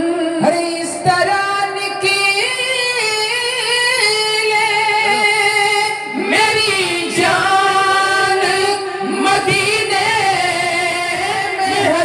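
A man singing a naat in a high voice, unaccompanied, drawing out long held notes that glide slowly up and down between phrases.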